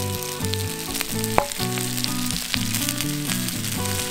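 Pork belly and ribs sizzling on a hot iron griddle, with a steady hiss of frying fat, small spattering crackles and one louder pop about a second and a half in. Background music with a plucked melody plays underneath.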